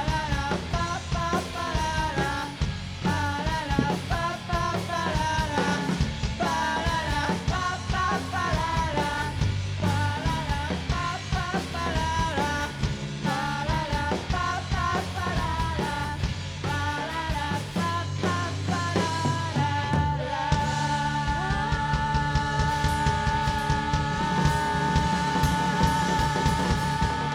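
Live rock band playing an instrumental passage: a wavering lead melody over drums and bass, settling about twenty seconds in onto one long held note.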